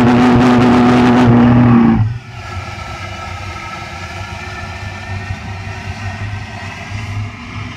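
Liquid-fuelled pulse jet engine running with a loud, steady buzzing drone, then cutting out abruptly about two seconds in. After that comes a much quieter rushing of leftover fuel burning off as a flame at the tailpipe, with a faint falling tone.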